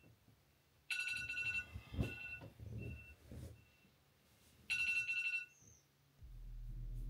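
Smartphone alarm tone ringing in repeated short bursts of high tones, loudest about a second in and again near five seconds, with rustling of bedding in between. Music with a deep, steady bass comes in near the end.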